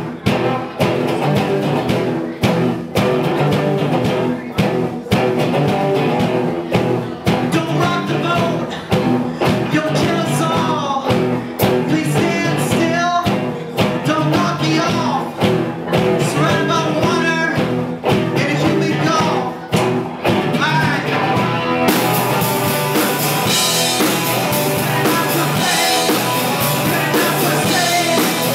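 Live rock band playing a song: acoustic and electric guitars over a drum kit, with a man singing lead into a microphone. About three quarters of the way through, the cymbals come in and the sound grows fuller.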